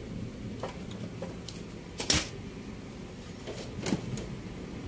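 Thin plastic diffuser and optical sheets of an LED TV backlight being handled and lifted off the panel: a few sharp clicks and crackles of flexing film, the loudest about two seconds in, over a low steady hum.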